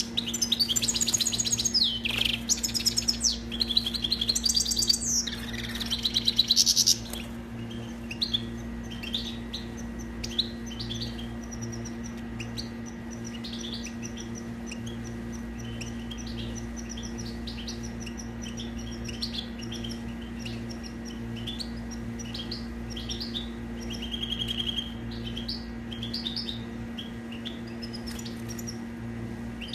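European goldfinch singing: a loud, fast run of twittering, trilling phrases for about the first seven seconds, then quieter, sparser twittering for the rest. A steady low hum runs underneath.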